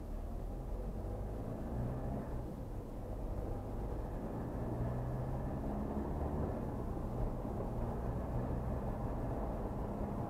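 A car's engine and tyre noise, heard from inside the cabin while driving. The sound is a steady low rumble, with the engine note rising and falling slightly.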